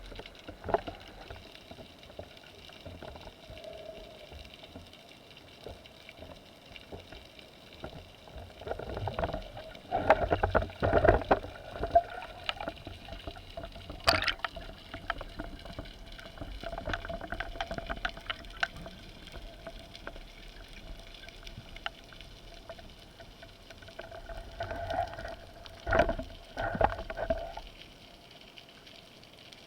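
Water sounds during a spearfishing dive: a faint steady hum and crackle, with louder rushes of water about ten seconds in and again near the end.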